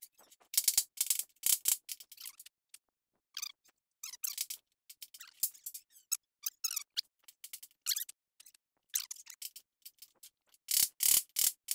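Scattered short clicks, rattles and squeaky scrapes of hands working with small parts and tools on a metal workbench, in quick clusters with silent gaps between.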